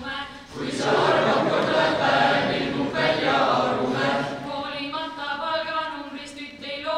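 A group of teenagers singing together without accompaniment; about a second in the singing gets much louder and fuller for a few seconds, then thins back to a clearer tune.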